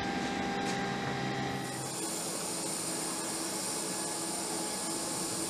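Steady hum and hiss of aircraft machinery: a low, even hum for the first couple of seconds, giving way to a brighter, higher hiss with a faint high whine.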